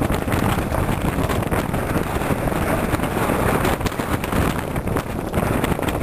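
Wind buffeting the camera microphone: a loud, low rumbling rush that rises and falls with the gusts.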